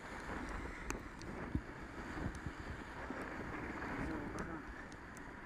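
Wind buffeting the microphone of a bicycle-mounted camera while riding, over the hiss of tyres on a wet road, with a few sharp ticks.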